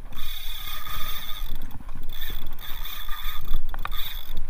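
Drag of a Shimano Saragosa 8000 spinning reel screaming as a hooked fish pulls line off it. It is a high-pitched whir that breaks off and picks up again several times.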